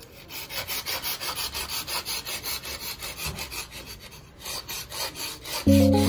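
A steel kitchen knife rasping through a handheld pull-through sharpener in quick, even strokes, about five a second, with a short break about four seconds in. Music with a sustained chord comes in near the end.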